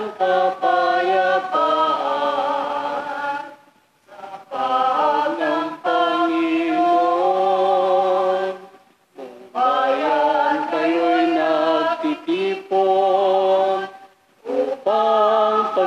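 A choir singing a Tagalog hymn, the entrance hymn of the Mass, in long held phrases with three short breaks for breath.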